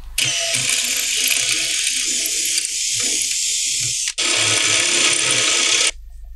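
Cordless drill running under load, drilling out old rivets in the Jeep's sheet-metal rear quarter panel. It stops for a moment about four seconds in, runs again, then cuts off near the end.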